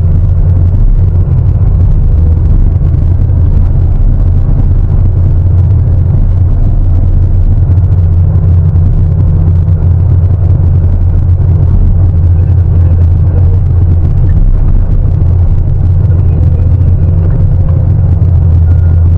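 Heavy diesel engine of a large mining excavator running steadily under load, a loud, unbroken low rumble.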